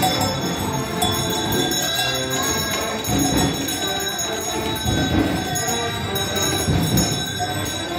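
Bells on yoked oxen jingling steadily as they pull wooden ox carts along a paved street, over a steady high ringing tone.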